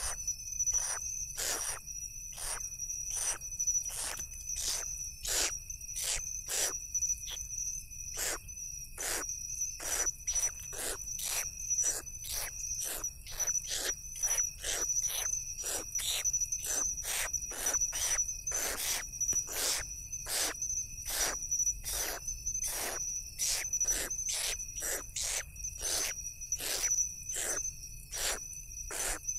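Downy owl chicks giving short hissing begging calls, repeated one to two times a second while they are fed, over the steady high trill of crickets.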